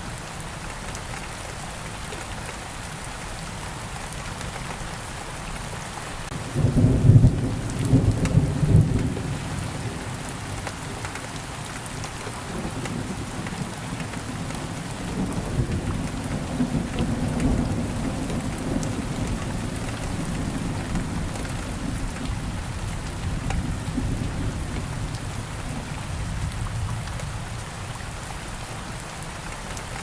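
Steady rain falling, with a sudden clap of thunder about six seconds in that is the loudest sound, followed by a long, lower rolling rumble that dies away near the end.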